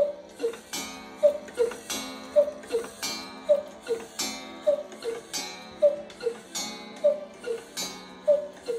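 Black Forest cuckoo clock striking the hour. Its two-note cuckoo call, high then low, repeats eight times at a little over one call a second, each call paired with a sharp ringing strike. The calling stops right at the end.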